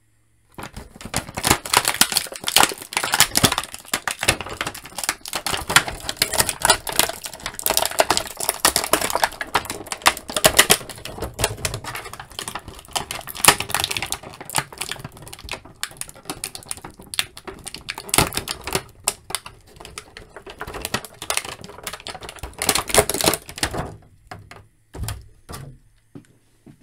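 Clear plastic blister packaging crackling and crinkling in a dense run as hands pull an action figure out of its tray, thinning to a few scattered handling sounds near the end.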